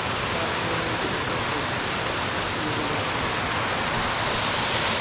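Small mountain-stream cascade: water rushing and splashing over rocks in a steady, even roar.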